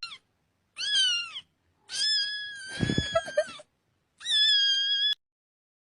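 A domestic cat meowing three times in high-pitched calls, the middle meow long and drawn out, with a few soft knocks under it.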